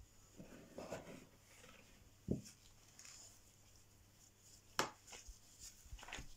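A plastic dough scraper and gloved hands working a crumbly comb-tart dough on a floured table: soft scraping and rubbing, a dull thump about two seconds in, and a sharp knock near five seconds.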